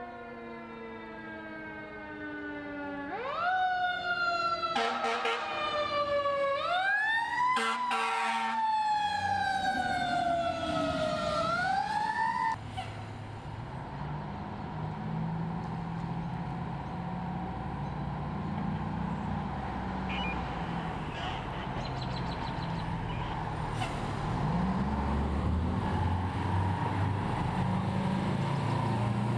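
A siren winds down with a slowly falling pitch, then wails up and down in several quick rises and slow falls. About twelve seconds in it cuts off abruptly, and a fire department ladder truck's engine rumbles steadily as the truck pulls out.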